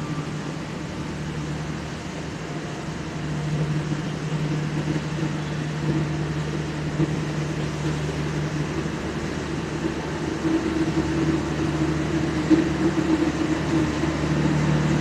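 Passenger train coaches rolling slowly past along the platform track, with a steady diesel engine hum from the train's generator car that grows louder toward the end as the car draws nearer.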